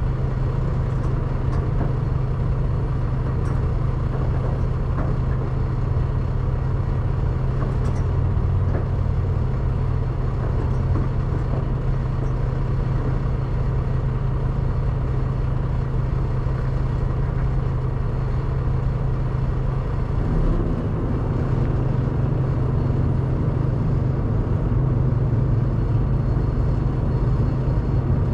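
Diesel semi truck idling, a steady low hum; its note shifts slightly about twenty seconds in.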